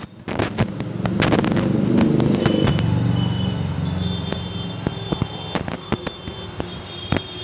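Scattered sharp cracks and pops like firecrackers going off, at irregular intervals. A low rumble swells about a second in and fades away over the next few seconds.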